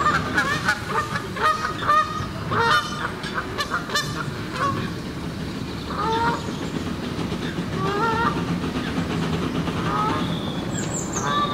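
Geese honking: a rapid run of calls in the first few seconds, then scattered single honks, over steady train noise.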